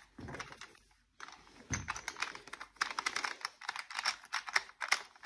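Rapid, irregular light tapping clicks, some louder than others, starting about a second in after a brief hush.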